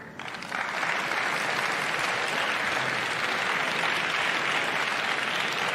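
Audience applauding, starting at once and building within the first second, then holding steady.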